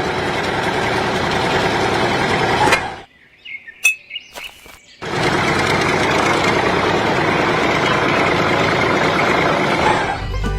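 Steady machine noise that cuts off abruptly about three seconds in. During a two-second break a bird chirps a few times, and then the noise starts up again.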